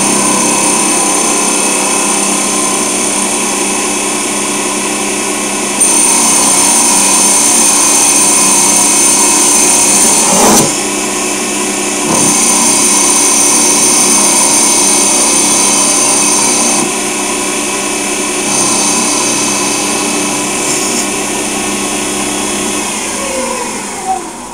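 Hercus PC 200 CNC lathe's spindle running at speed while cutting aluminium, with a steady motor whine and a higher whine that cuts in and out twice. Near the end the spindle winds down, its pitch falling.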